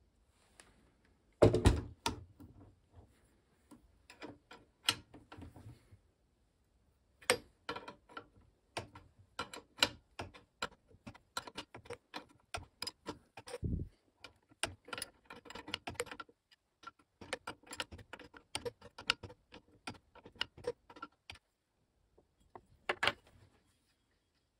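Metal parts and tools handled on an FX Dreamline air rifle's barrel: a sharp knock about a second and a half in, then a long run of small metallic clicks and rattles as the brass barrel-liner collar nut is loosened with a 15mm wrench and unscrewed, with a dull thump about halfway through.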